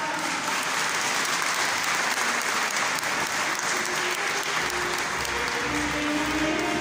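Crowd applauding steadily as the statue is carried. Music with a low, regular beat rises under the clapping in the last two seconds.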